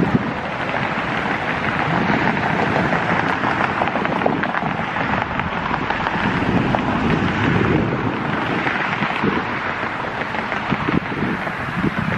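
Wind buffeting the microphone: a steady, loud rush of noise.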